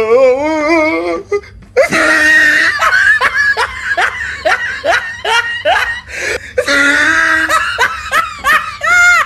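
A person laughing hard, in a long run of repeated bursts of laughter with a wavering cry at the start and a high call near the end.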